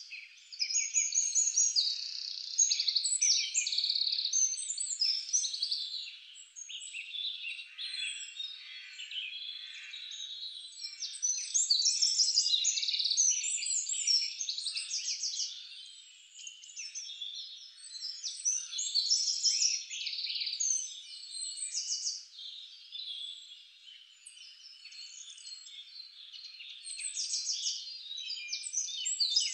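A dense chorus of small birds chirping and trilling, many calls overlapping, swelling and fading in loudness in waves.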